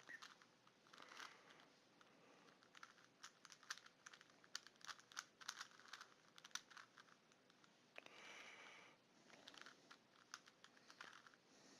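A 3x3 Rubik's Cube being turned by hand: faint, irregular clicking and clacking of the plastic layers snapping round, with a soft breathy rush about eight seconds in.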